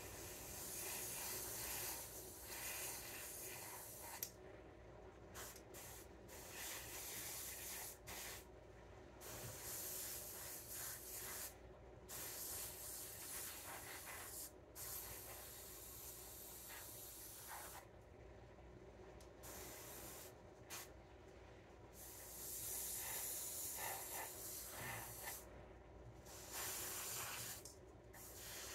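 Airbrush spraying paint in light coats: a hiss of air and paint that stops briefly again and again as the trigger is let off between passes.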